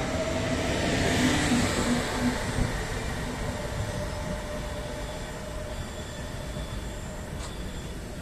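Trenord TSR double-deck electric multiple unit pulling out and drawing away: a faint motor whine falling a little in pitch and wheel-on-rail rolling noise, both fading steadily.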